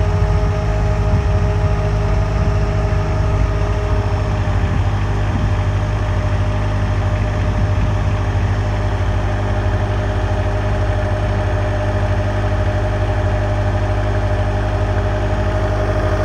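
Engine of an aquatic weed-removal boat running steadily, a low drone with a thin steady whine over it.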